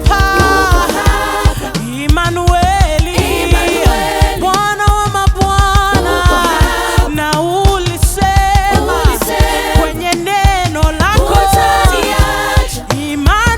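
Live gospel worship music: voices singing a melody over a band with a steady drum beat.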